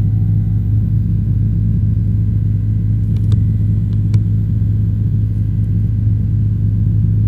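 Steady low drone of a helicopter's engine and rotor heard inside the cabin over the intercom, with a few faint clicks about three to four seconds in.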